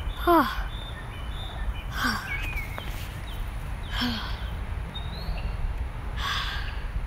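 Small birds chirping, short high calls repeated every second or so, over a steady low rumble of outdoor background noise.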